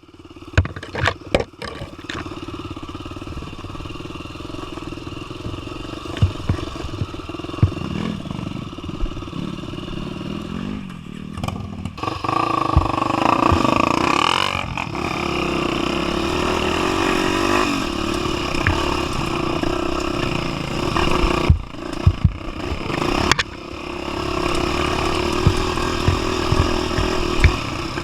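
250 cc single-cylinder four-stroke trail motorcycle running over rough ground. It revs up and back down about halfway through, with sharp knocks and clatter from the bike near the start and again a few seconds before the end.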